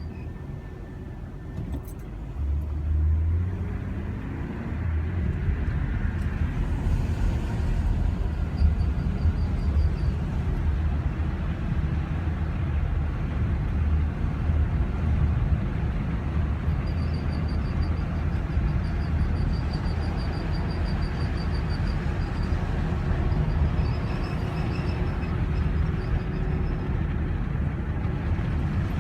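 A car running with a steady low rumble, and a faint high-pitched squeak that chirps in rapid pulses. The squeak comes and goes about three times, in the short stretch longest near the middle.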